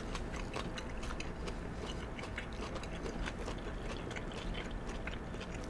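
Close-miked chewing and slurping of chow mein noodles: a dense, steady run of small wet mouth clicks and smacks.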